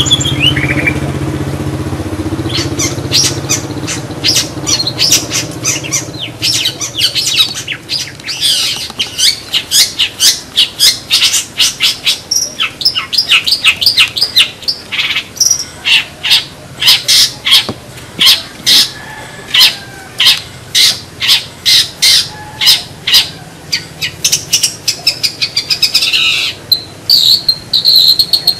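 Long-tailed shrike (cendet) calling: a long run of sharp, repeated chirps at about two a second, over a low hum that fades out in the first few seconds.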